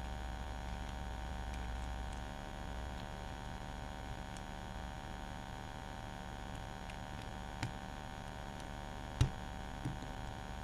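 Steady electrical hum, with a few faint clicks and one sharper click about nine seconds in from small metal parts of a .22 conversion bolt being handled during reassembly.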